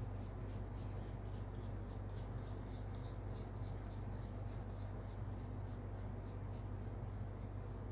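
Trading cards being thumbed through one at a time in the hands, each card sliding off the stack with a soft swish, about three or four a second, over a steady low hum.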